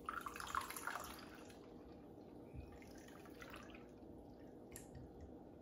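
Shaken margarita poured from a metal cocktail shaker into a martini glass: a splashing stream for about the first second and a half, then a thinner trickle and a few drips.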